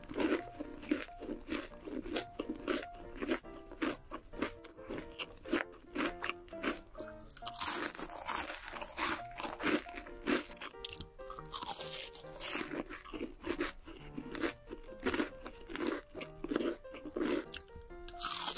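Crispy fried chicken crunching as it is bitten and chewed close to the microphone: many short crunches in quick succession, over background music.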